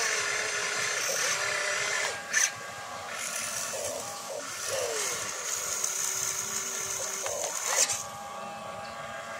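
Electric motors and gearboxes of a radio-controlled excavator whining as it swings and works its boom and bucket, the pitch shifting as the motors start and stop. Two short sharp clicks break in, one about two and a half seconds in and one near the end.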